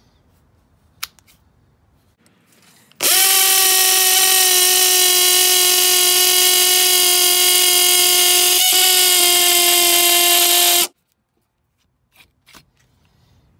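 Milwaukee M18 compact hammer drill/driver (2607-22CT) running at a steady pitch for about eight seconds as it drills into brick, then stopping abruptly. A couple of faint handling clicks come before and after.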